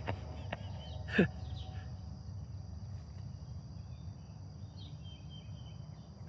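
Outdoor rural ambience: a steady low rumble with a faint steady high tone. About a second in comes a short falling call, and faint bird chirps follow in the middle.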